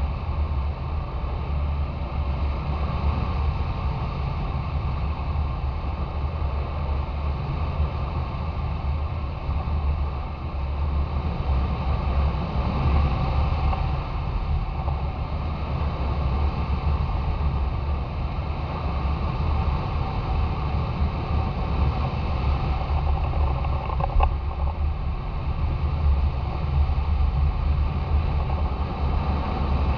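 Steady wind rush and buffeting over a hang glider's wing-tip camera in flight, with one brief tick partway through.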